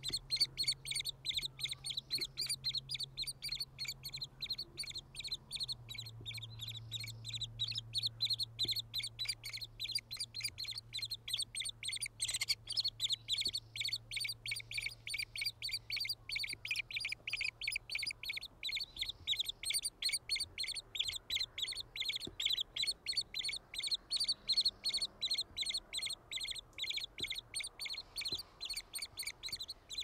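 White-headed woodpeckers at their nest calling in an unbroken run of short, high chirps, about three or four a second.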